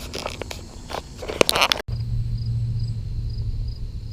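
Sharp clicks and short rustling bursts of handling noise, then, after an abrupt cut, faint high insect chirps repeating about twice a second over a low steady hum.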